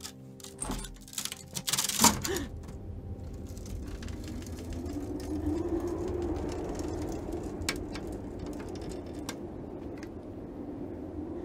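A few sharp clicks and a loud knock about two seconds in, then a steady low hum.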